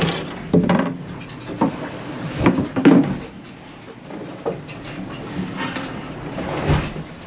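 Wooden cabinet drawers and doors in a catamaran's cabin knocking against their frames in a series of irregular knocks, loudest around three seconds in, over a steady background noise. The drawer will not stay latched and keeps banging loose as the boat moves.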